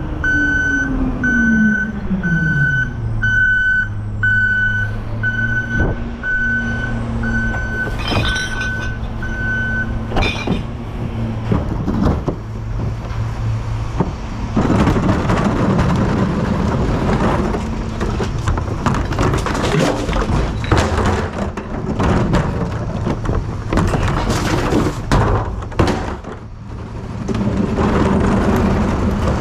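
Recycling truck backing up: its reversing alarm beeps about a dozen times, roughly once every 0.8 s, while the engine slows from a higher speed to a steady idle. The beeping stops about ten seconds in. From about fourteen seconds on there is busy mechanical clatter with repeated thunks.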